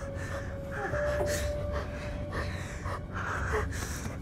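Ragged, distressed gasping and sobbing breaths, several in a row, over a low steady rumble. A thin held tone sounds for the first couple of seconds.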